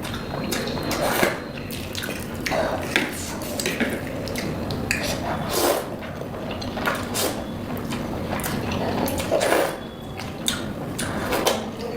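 Eating spicy Korean ramen: irregular wet slurps of noodles and broth, with utensils clinking against the bowl, roughly one or two sounds a second.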